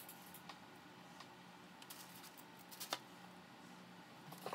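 Near silence: faint kitchen room tone with a low steady hum, broken by a few soft ticks of hands handling herbs and utensils, and a light knock about three seconds in.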